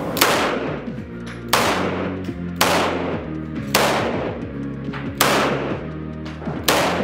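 Tokarev TT pistol firing 7.62×25 mm rounds semi-automatically: six single shots about a second apart, each followed by the echo of an indoor range.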